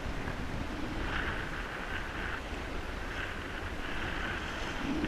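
Wind buffeting the microphone over choppy bay water, which sloshes against the kayak's hull, with waves surging past every second or so.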